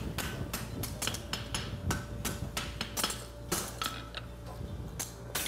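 Hand hammer striking a red-hot steel horseshoe bar on an anvil, about three blows a second, with a faint steady ring under the blows: the heel of the shoe being drawn out and forged.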